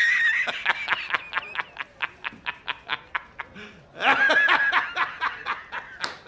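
A man laughing hard: a held high note breaking into a rapid string of short 'ha's, a brief pause, then a second round of laughter about four seconds in.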